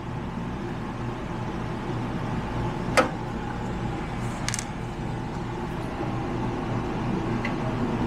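Screwdriver clicking against the metal terminals of a Dometic RV furnace while disconnecting the wiring. There is one sharp click about three seconds in and a quick pair of fainter ones a moment later, over a steady low hum.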